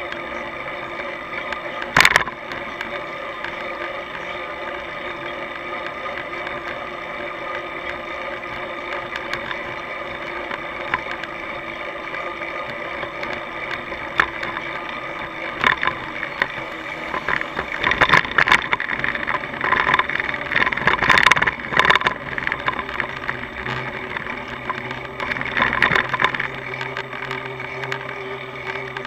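Steady road and wind noise picked up by a bicycle-mounted camera while riding, with a sharp knock about two seconds in and bursts of louder rattling and crackle in the second half.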